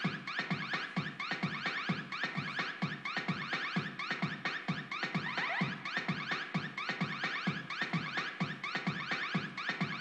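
Electronic dance music: a siren-like synth sweep rising over and over on a steady beat of about two strokes a second.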